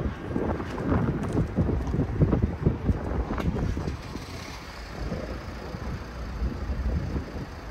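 Wind buffeting a phone microphone outdoors: a gusty rumble for the first few seconds that eases to a quieter, steadier rush.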